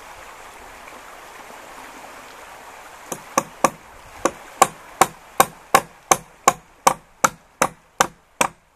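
Hammer nailing a wooden crossboard onto a log footbridge deck: a quick, even run of about fifteen sharp blows, roughly two and a half a second, starting about three seconds in, over a steady hiss.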